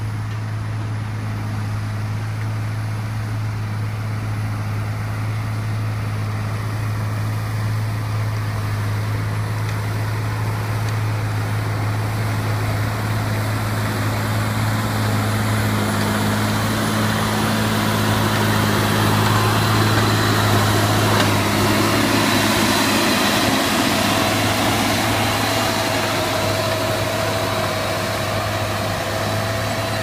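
Massey Ferguson tractor's diesel engine pulling a plough under load, a steady drone that grows louder as the tractor comes close and passes, then eases off slightly.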